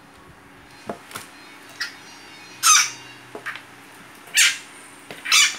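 Asian water monitor snapping at small frogs on a plastic grid floor: a couple of light clicks, then three short, loud rushing noises as it lunges, with the frog slipping free.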